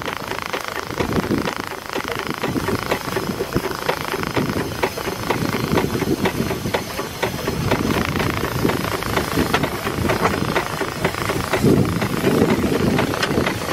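Steady hiss of steam from a steam launch blowing off at its safety valve, a sign that the boiler is at full pressure, heard with wind on the microphone.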